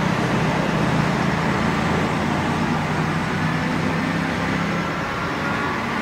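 Boeing 767-300ER's jet engines running as a steady, loud noise with a low hum that fades about five seconds in; a faint rising whine enters near the end.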